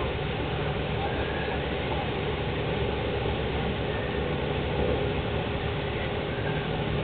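Paddle steamer Freya running past with a steady low rumble, its side paddle wheels churning the water.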